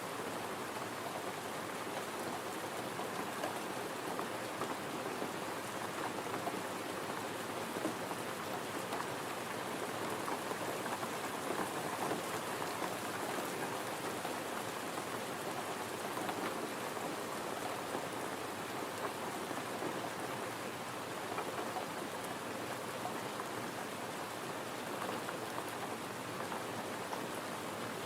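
Steady gentle rain falling, an even continuous patter.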